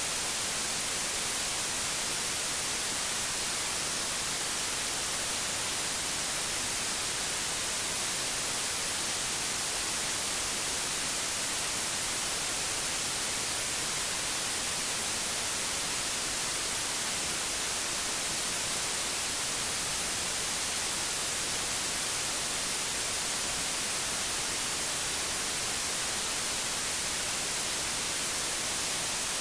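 Steady white noise: an even, unchanging hiss, brightest in the high frequencies.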